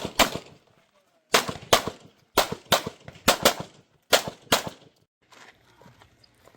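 Pistol fired in quick pairs: about ten sharp shots in five double-taps over the first four and a half seconds, then the firing stops.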